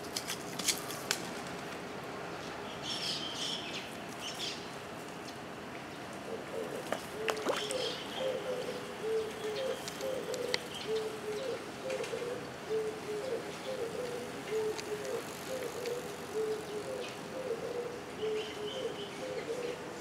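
A pigeon cooing: a long run of short, low, repeated coos starting about six and a half seconds in. A few brief high chirps from small birds come in three short spells.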